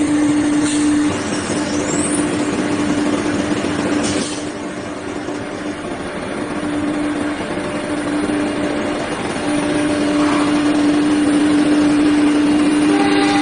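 FW-2130ATC automatic tool changer CNC router machining, with its vacuum pump and dust collector running: a loud, steady mechanical noise with a steady hum. A brief hiss comes about four seconds in, and a new pitched whine starts near the end.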